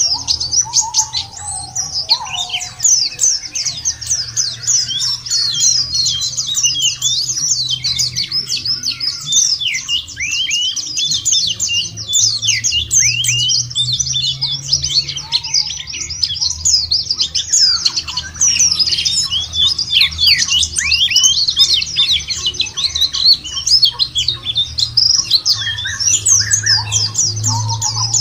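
A flock of white-eyes (pleci, Zosterops) chirping and trilling without pause, a dense chorus of short, high, quick notes, many sweeping downward. A low steady hum runs underneath.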